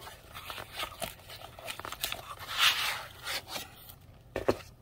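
Cardboard box and foam insert of a gel polish kit being handled: scraping and crinkling, with a louder scrape a little past halfway and a couple of sharp knocks near the end.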